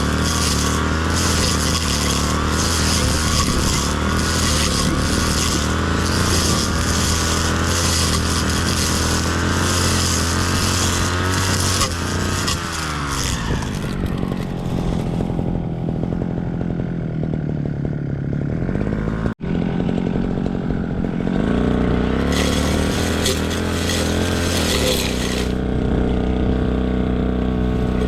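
A two-stroke brush cutter runs at high revs. About 12 seconds in it falls back to a low idle, cuts out for an instant, then revs up again around 21 seconds and eases off slightly near the end.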